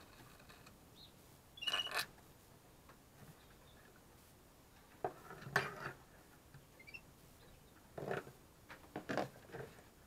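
Handling noises of a plastic syringe, metal spoon and plastic tub as soft hand-rearing formula is sucked up into the syringe: short clusters of clicks, knocks and scrapes near the start, midway and near the end.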